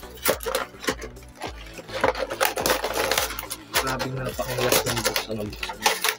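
Stiff clear plastic packaging of a Pokémon card box crinkling and crackling in a quick string of sharp crackles as it is pulled and stripped open.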